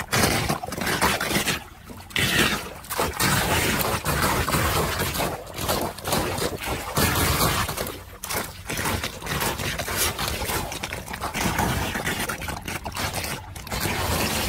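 Muddy floodwater gurgling and splashing as it pours down a freshly unclogged street drain, with a plastic rake scraping debris from the grate.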